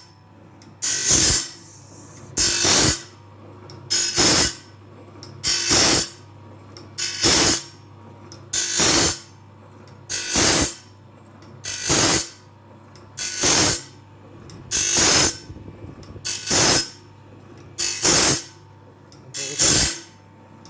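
Band sawmill blade sharpener working through a blade: the grinding wheel rasps on one tooth for about half a second, about every one and a half seconds, as the feed advances the blade a tooth at a time. A steady motor hum runs between the strokes.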